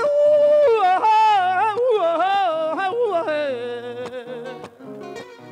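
Folk singer's drawn-out wordless vocal line in the torrente style of décima singing. It holds a high note for under a second, then bends and wavers up and down in pitch over a low instrumental accompaniment, fading toward the end.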